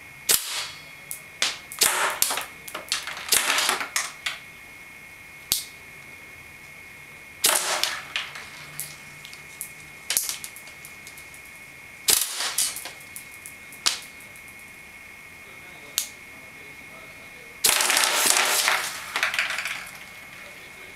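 JAC MP5 SD5 airsoft gun firing on remote compressed air at 60 psi. It fires single shots and short strings, then one longer full-auto burst of about two seconds near the end. The full-auto rate of fire is held low by the compressor's low flow rate.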